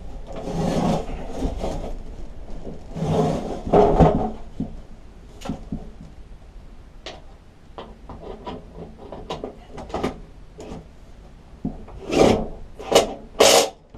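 A lawn mower deck scraping and sliding on a wooden bench as it is swung round, then scattered short clicks of a ratchet tightening bolts underneath it, with more loud scraping and knocking near the end.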